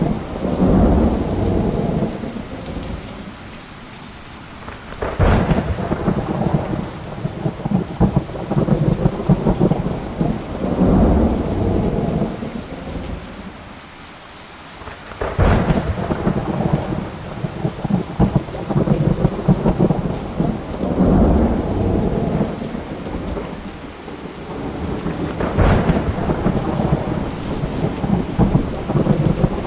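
Thunderstorm: rain falling steadily under repeated rolling thunder. Three sharp thunderclaps come about ten seconds apart, each opening into a long low rumble that dies away before the next.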